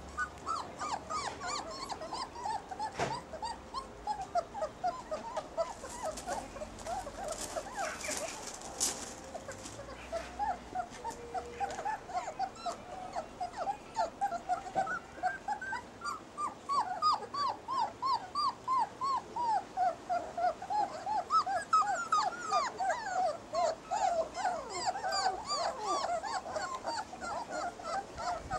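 Basset hound puppies whimpering, a steady stream of short squeaky whines that rise and fall, a few each second.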